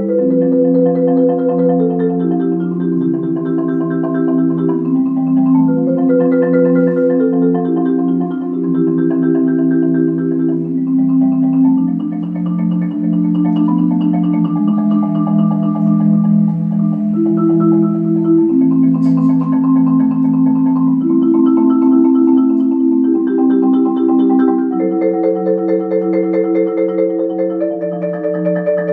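Solo concert marimba with tube resonators, played with mallets in a slow, lyrical arrangement: long sustained chords, held by rolling, shifting every second or two under a melody.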